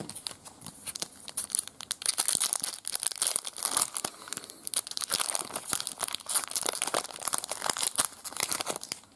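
Foil wrapper of a 1996 Fleer Ultra X-Men trading card pack being crinkled and torn open by hand: a dense, crackling rustle that is loudest in the middle and dies away just before the end.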